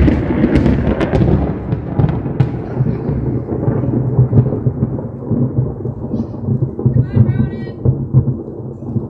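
Loud thunder from a nearby lightning strike: it starts suddenly with a few sharp cracks in the first couple of seconds, then goes on as a long, low rolling rumble.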